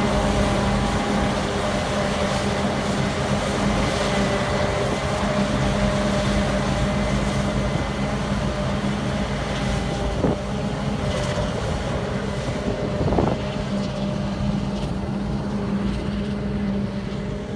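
Heavy corn silage harvesting machinery running steadily with a constant droning hum, with a couple of brief knocks partway through.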